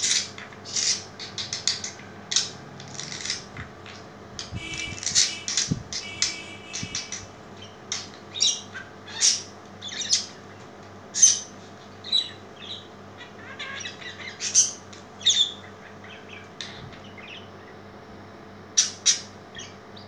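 Budgerigar chirping and squawking in short, sharp, high calls, with a stretch of more tuneful chatter about five seconds in and two sharp calls near the end.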